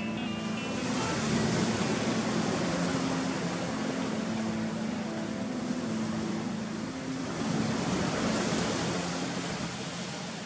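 Sea waves washing against a rocky shore in a steady rush. It swells about a second in and again about eight seconds in.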